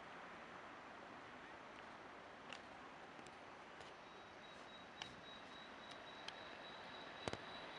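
Faint, steady street background noise with a few small clicks, and a thin steady high whine that starts about halfway through.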